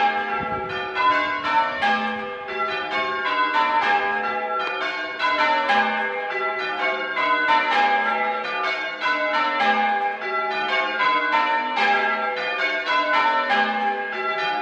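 A ring of six church bells, with a tenor of 8-3-22 cwt tuned to G, rung full-circle in changes. The strikes follow one another in an even, unbroken stream of different notes.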